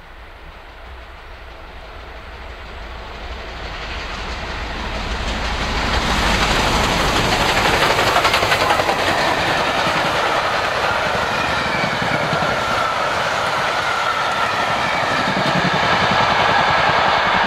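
Bulleid Battle of Britain class Pacific steam locomotive 34067 Tangmere, a three-cylinder engine, coming up at speed and passing close by, followed by its coaches rolling past. The sound swells over the first six seconds and then holds loud as the train goes by.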